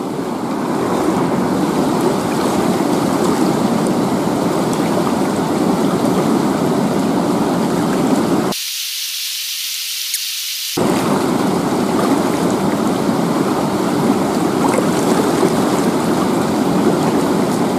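Steady rush of river water flowing over rocks. About halfway through, the deeper part of the rush drops out for about two seconds, leaving only a thin hiss.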